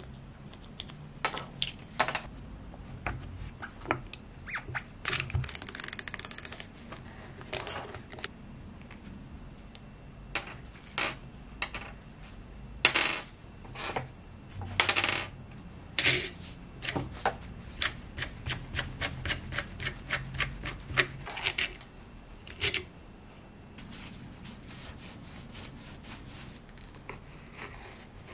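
Small steel screws and metal parts clinking against each other and the bench, many separate sharp clicks, with a stretch of rubbing about five seconds in and a quick run of small ticks in the middle.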